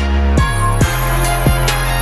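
Background music with a drum beat of about two hits a second and deep bass notes that slide between pitches.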